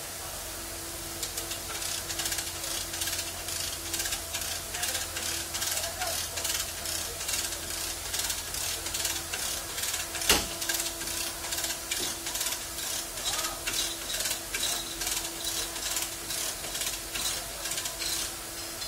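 Lever chain hoist being worked back and forth, its ratchet pawl clicking about twice a second as it tightens a chain pulling out a car's crushed rear body panel, with one sharp bang about halfway.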